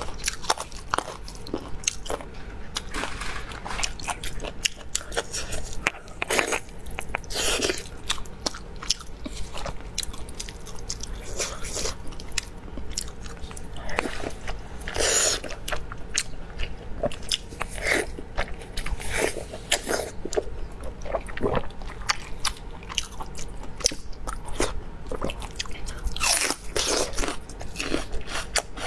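Close-miked eating sounds: biting into and chewing spicy braised beef rib meat, a dense run of short clicks and smacks from the mouth.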